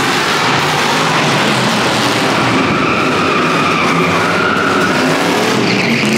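Drift car sliding sideways with its tyres squealing continuously, a long wavering squeal over a steady hiss of scrubbing rubber, the engine running underneath.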